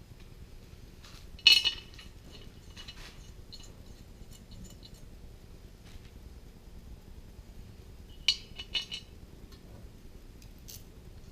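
Steel head bolts clinking as they are handled: one sharp metallic clink about a second and a half in, a few faint ticks, and a short cluster of clinks near the end.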